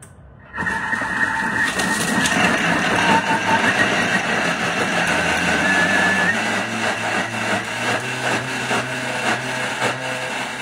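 Thermomix food processor blending a spinach mixture: its motor starts suddenly about half a second in and runs steadily with a whine and churning noise, a lower hum joining about halfway.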